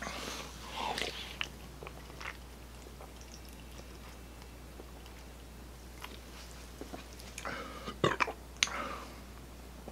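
Close-miked mouth sounds of sipping and swallowing a fizzy drink from an aluminium can, with a few sharp clicks and knocks about eight seconds in as the can comes down from the mouth.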